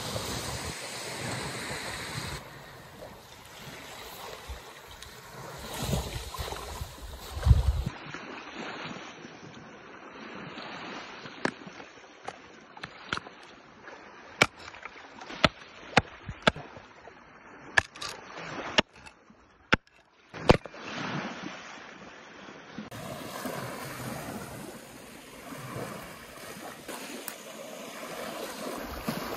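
Sea waves washing onto a sandy shore, with wind on the microphone. In the middle come about ten sharp, separate wooden knocks over some nine seconds: a block of firewood being split into kindling with an axe.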